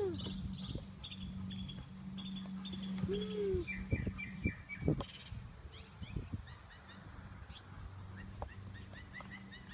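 Small birds chirping over and over in the background, over a steady low hum. About three seconds in there is one short rising-and-falling voice-like note, and a few soft clicks follow a little later.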